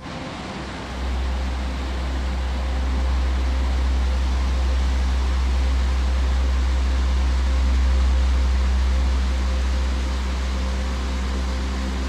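Whitewater of a mountain river cascade rushing: a loud, steady rush with a deep rumble that swells in about a second in.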